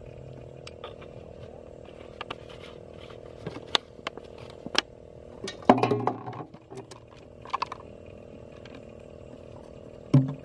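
Hands handling and working a plastic water bottle, giving scattered sharp clicks and a louder stretch of crinkling about six seconds in, and a short knock near the end. A faint steady hum runs underneath.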